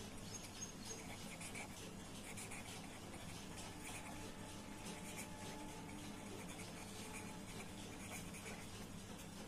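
Faint scratching of a pen writing on notebook paper in short, irregular strokes.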